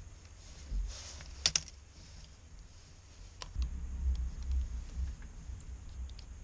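Small sharp clicks and taps of handling: a quick cluster of clicks about a second and a half in, a single click near the middle, then faint scattered ticks over a low handling rumble.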